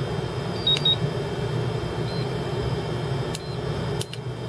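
Key-press beeps from a Turnigy Accucel 6 charger's piezo buzzer as its buttons are pressed to start a balance charge: one short high beep about a second in, then a few shorter clicks near the end, over a steady low hum.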